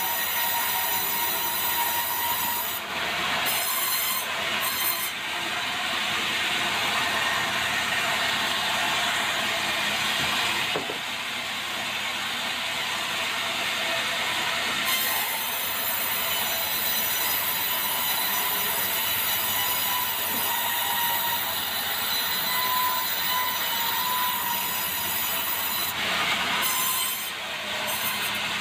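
Sawmill saw running and cutting lengthwise through a squared, debarked meranti log as the log carriage rolls along its rails. The saw noise is steady and high, easing and changing briefly a few times.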